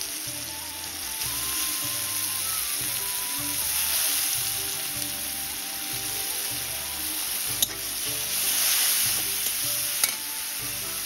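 Sliced onions frying in oil in a wok with a steady sizzle while a metal spatula stirs them. The sizzle swells to its loudest about eight seconds in, as steam rises off the pan, and the spatula clacks sharply against the pan twice.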